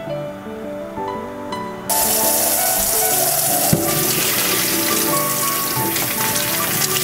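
Pot of boiling water and cooked rice vermicelli being poured into a plastic colander in a steel sink: a steady rushing gush that starts suddenly about two seconds in, with one knock a little after the middle, over background music.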